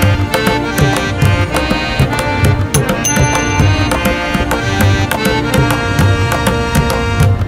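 Background music with a steady drum beat, about two beats a second, under held melodic tones.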